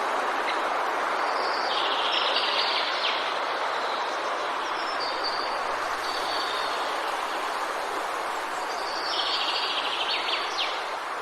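Steady wind noise, with a songbird singing a short phrase three times, about every three to four seconds.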